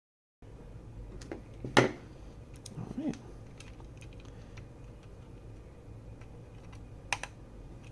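Scattered small clicks and taps from handling a graphics card on a workbench, with a sharper click about two seconds in and another near the end.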